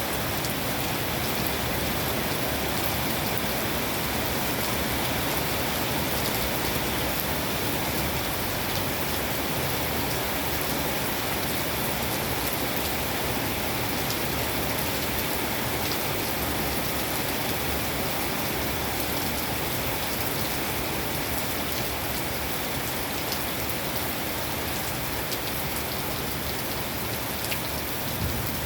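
Steady rain falling and pattering on surfaces, a dense even hiss with scattered individual drop ticks.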